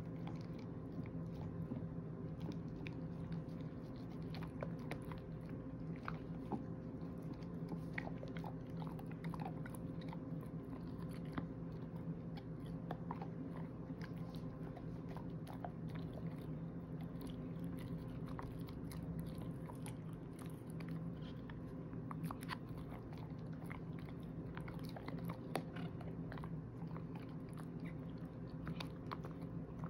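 Shepherd-mix dog gnawing and chewing an "everlasting" chew treat: irregular crunches and teeth clicks throughout, over a steady low hum.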